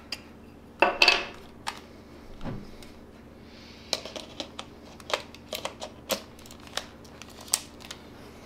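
Hand-handling clicks and light knocks of an Olympus M.Zuiko 12-100mm f/4 zoom lens being fitted to an Olympus OM-D E-M1 Mark III body: a brief scrape about a second in, a dull knock, then a string of small sharp clicks as the lens is lined up and twisted onto the Micro Four Thirds mount.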